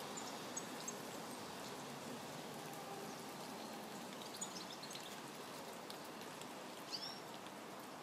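Steady rain falling, with faint high bird chirps now and then: a couple about half a second in, a short run around four and a half seconds in, and one near the end.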